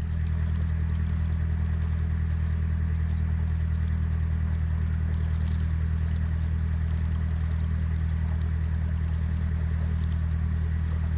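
Narrowboat's inboard engine running at a steady cruising speed, a low even throb with a regular pulse. A small bird chirps in short quick runs about three times over it.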